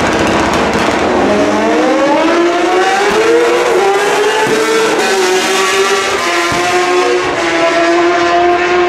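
Two drag-racing motorcycles launching from the start line and accelerating down the strip, the engine note climbing steeply for about two seconds and then levelling off.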